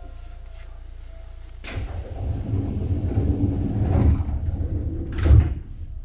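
Seibu 2000 series commuter train's passenger doors closing at a station stop: a sharp knock, a few seconds of low rumbling, then a louder bang as the doors shut.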